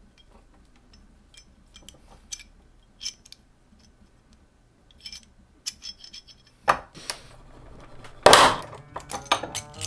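Small metal clinks and taps as a homemade steel punch-and-die set is handled and fitted into a C-clamp. A sharp snap comes about two-thirds through, then the loudest sound, a short crunch near the end, as the clamp forces the punch through a thin aluminum sheet.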